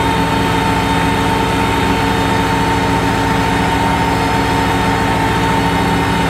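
New Holland 7610 tractor's diesel engine running steadily under load, pulling a four-disc plough through dry soil, with a steady whine over it.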